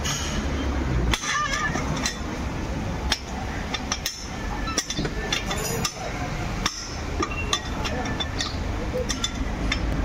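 Wheel nuts being loosened with a socket on a long steel bar: scattered metallic clinks and sharp knocks as the socket is worked on and off the nuts.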